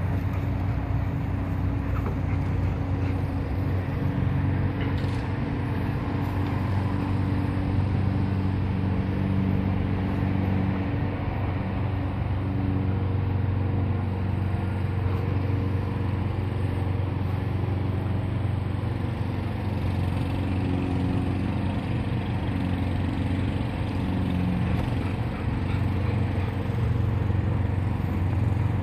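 A steady low motor drone, with several pitched tones that waver slightly in pitch.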